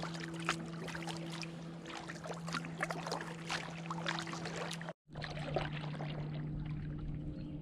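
Water splashing and trickling around a kayak, the irregular drips and splashes of paddling, over a steady low hum. The sound cuts out completely for a moment about five seconds in, then resumes more softly.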